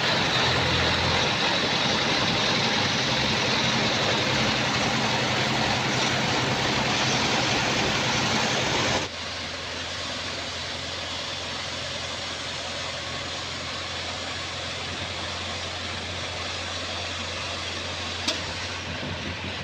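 Heavy engine running steadily with a low hum; the sound drops in level and changes abruptly about nine seconds in. A single short click near the end.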